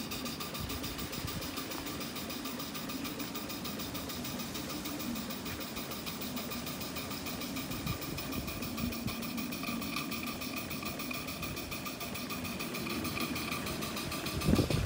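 Maxitrak 1-inch-scale Burrell live-steam traction engine running on the stand, its single cylinder giving a fast, even beat of exhaust with a steady hiss of steam over it. A louder knock comes near the end.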